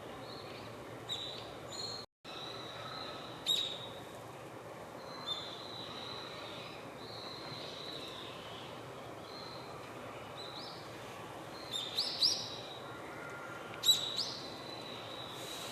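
Japanese tit calling: short, sharp high chirps scattered through, with a quick cluster of calls about twelve seconds in and the loudest call near the end, over steady outdoor background noise and a faint steady high tone. The sound drops out for a moment about two seconds in.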